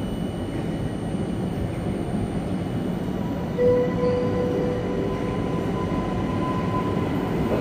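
Electric multiple unit passenger train rolling into the platform, a steady low rumble. About halfway in there is a brief, louder tone, followed by a thin, steady high whine that lasts a few seconds as the train comes in.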